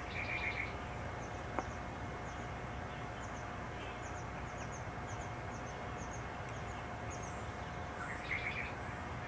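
Small birds chirping: a steady run of short, high chirps, with a brief lower twittering near the start and again near the end, over a steady background hiss and a faint hum. One faint click about a second and a half in.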